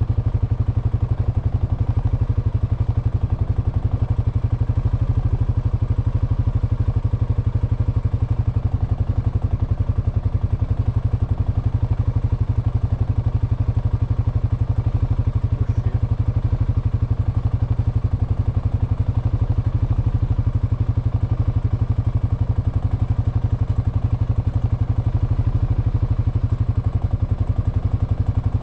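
Honda Foreman ATV's single-cylinder four-stroke engine idling steadily while the machine stands still.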